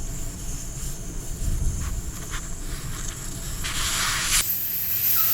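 Air escaping from a Onewheel GT tire as its valve stem is removed: a few short spurts of hiss, then a strong steady hiss of the tire deflating that begins near the end. Under the spurts runs a low rumble that stops when the steady hiss begins.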